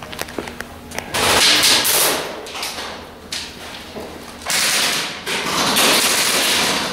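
Airsoft rifles firing in a large indoor hall: scattered sharp clicks, then two long bursts of fire. The first burst starts about a second in and lasts about a second. The second starts about halfway through and lasts about two seconds.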